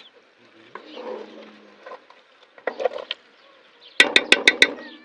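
Cooking utensils knocking and scraping in a pot while food is stirred, ending in a quick run of about six sharp knocks near the end.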